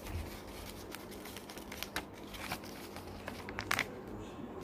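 A folded paper airplane being handled and flipped over: paper rustling and crinkling in short scattered crackles, with a louder crackle a little before the end.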